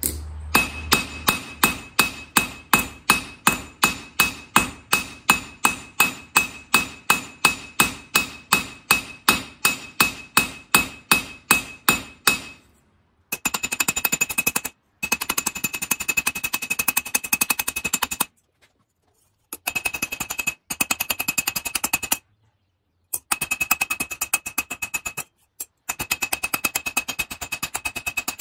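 Hand hammer striking a thin 16-gauge sheet-steel flower cut-out on an anvil, cold-texturing the petals, each blow ringing with a high tone. It strikes steadily at about three blows a second, then from about thirteen seconds in the blows come much faster, in runs broken by short gaps.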